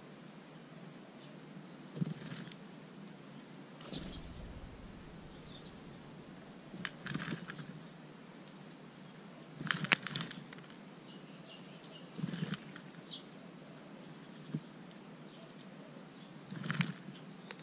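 House sparrow sand-bathing in dry potting soil and bark mulch: its wings flutter and scuff the soil in about seven short bursts a couple of seconds apart.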